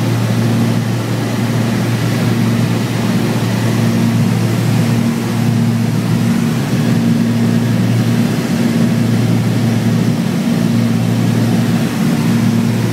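Cessna light aircraft's engine and propeller, a loud steady drone heard inside the cabin, with a low hum and a second tone above it and no change in pitch.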